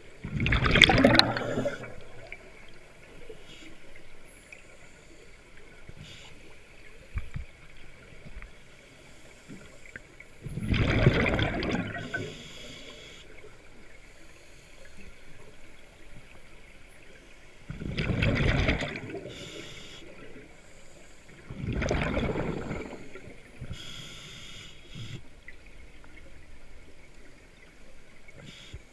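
Scuba diver's exhaled breath through the regulator underwater: four bursts of bubbles, each about a second and a half long, several seconds apart.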